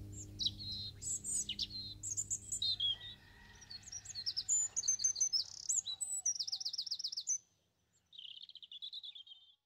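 Songbirds singing: a string of varied high chirps and sweeping whistles, a fast trill of repeated notes, a short pause, then a buzzy trill near the end. The last held notes of music fade out under the first few seconds.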